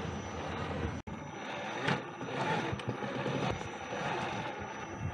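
RC4WD Gelande II Defender 90 scale RC truck crawling over rocks and dirt: its motor and gears running and its tyres scraping and crunching, heard from a camera mounted on the truck. The sound cuts out sharply for a moment about a second in, and irregular clicks and scrapes follow.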